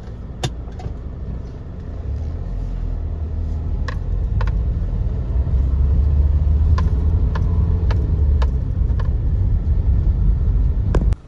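Nissan Terrano's engine and road rumble heard from inside the cabin while driving, growing louder over the first half. A few sharp clicks or rattles sound at uneven intervals, and the sound stops abruptly near the end.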